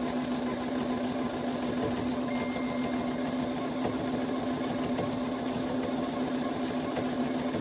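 Bernina sewing machine running steadily at an even speed, stitching binding onto fabric through its binder attachment.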